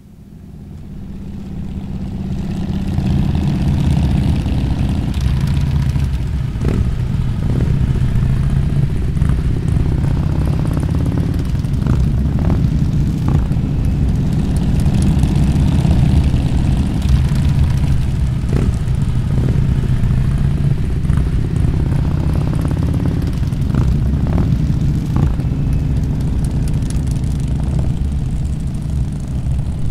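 A column of motorcycles riding past one after another, their engines running steady and loud. The sound swells up over the first few seconds.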